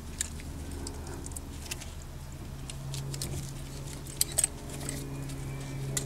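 Light, scattered metallic clicks and ticks from a C-clamp screw being turned with a socket wrench against an old brake pad, pressing the brake caliper pistons back in; two sharper ticks come about four seconds in. A steady low hum starts about three seconds in.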